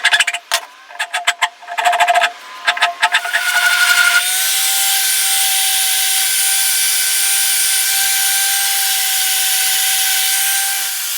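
Quick knocks and clatter for the first few seconds, then a power tool starts and runs steadily on wood with a high, even whine.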